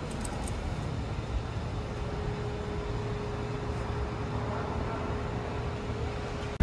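City street traffic: a steady low rumble of passing vehicles, with a faint steady hum joining in about two seconds in.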